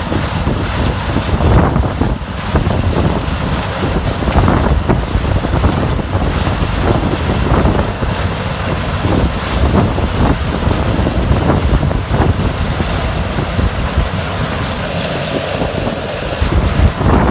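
Corn harvesting machinery running loudly, with heavy wind buffeting on the microphone.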